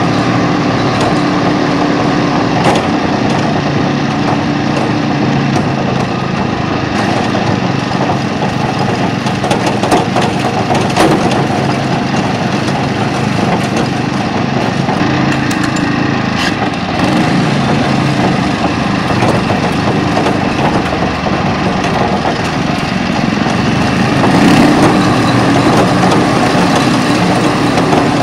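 Pasquali SB30 two-wheel walking tractor's engine running steadily under way, with scattered sharp clicks and knocks over it.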